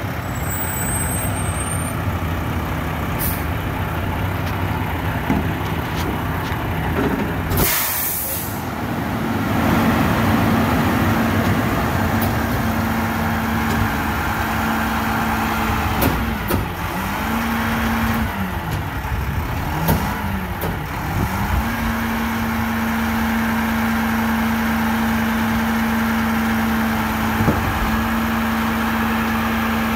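Garbage truck's diesel engine running, with a sharp hiss of air brakes about eight seconds in. After that the engine holds a steady drone whose pitch dips and recovers several times around the middle.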